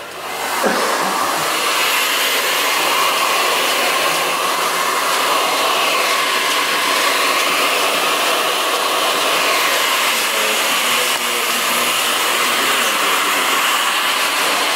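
Hand-held hair dryer blowing steadily on a hot setting, its rushing sound wavering slightly as it is moved quickly over the hair. It comes up to full level about half a second in.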